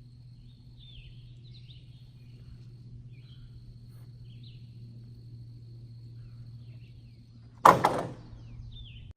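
Faint bird chirps over a steady low hum, broken near the end by a single loud knock.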